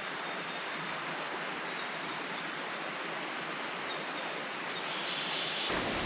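Steady outdoor background hiss with a few faint, short bird chirps; near the end the sound changes abruptly to a fuller, lower rumble.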